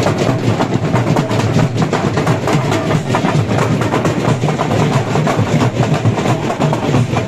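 Drums beating, a dense run of quick strokes with no break.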